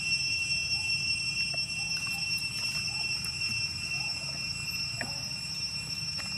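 Night insects shrilling in steady high tones, with faint short rising calls repeating about every half second beneath them.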